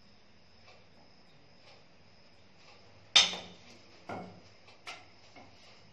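A wooden splint stick being handled: one sharp clack about three seconds in, then two or three lighter knocks.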